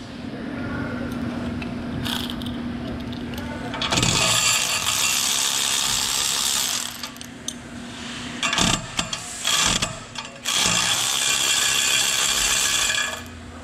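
Cordless electric ratchet spinning nuts off the bolts of an exhaust pipe flange, in two runs of about three seconds each, with metal clinks of the tools and bolts between them.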